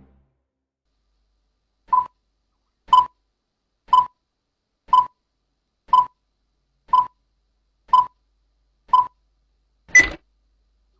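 Electronic countdown beeps: eight short beeps of the same pitch, one a second, then a final higher-pitched beep, like a time-signal or countdown sound effect.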